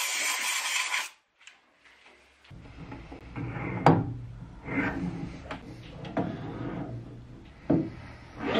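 Compressed-air blow gun hissing for about a second, then cutting off. After a short pause a low hum comes in, and the aluminium die holder is worked onto the lathe's tailstock quill with a series of sharp metallic clunks and knocks as it slides into place and the tailstock handwheel is turned.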